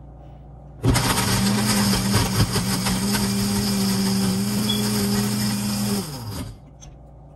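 Electric blender running for about five seconds, starting about a second in and winding down near the end. It is blending a thick frozen mixture with a couple of ice chips just added.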